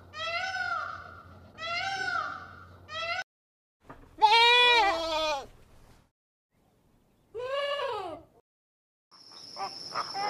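A peacock calling four times in a row, each loud call about a second long. Then a goat bleats twice, the first a long wavering bleat. Near the end comes a flock of flamingos honking in short rapid calls under a steady high whine.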